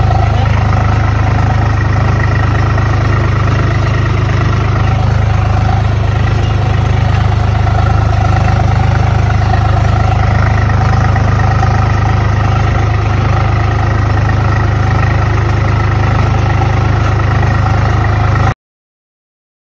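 Tractor diesel engine running at a steady speed, heard from the driver's seat: a loud, even low drone with fainter steady tones above it. It cuts off abruptly near the end.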